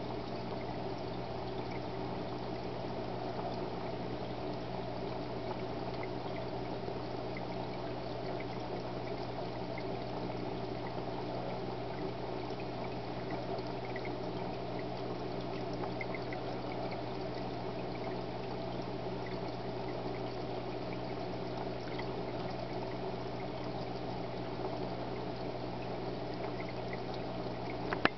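Aquarium filter running: a steady trickle and pour of water into the tank over a constant low hum, with faint scattered ticks.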